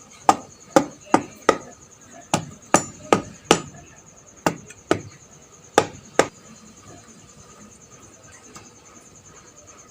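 About a dozen sharp hammer blows, mostly in quick pairs, stopping a little past six seconds in.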